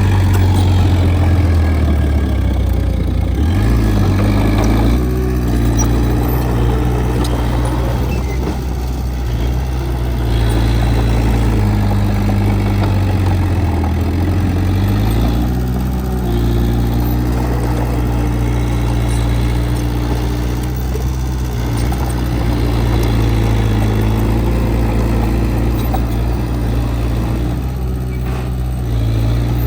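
Diesel engine of heavy earthmoving equipment running continuously, with its engine speed shifting up and down a few times.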